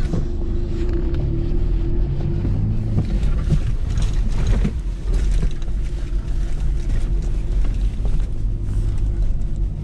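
Toyota 90 Series Land Cruiser Prado crawling over a rough dirt track, heard from inside the cab: a steady low engine and driveline rumble with scattered knocks and rattles from the bumpy ground.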